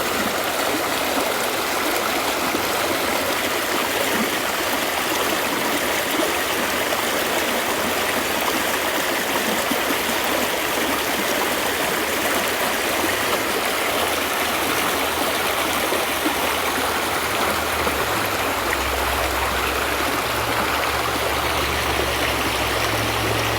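Steady sound of running water, a stream flowing without pause. A low rumble joins in underneath during the last few seconds.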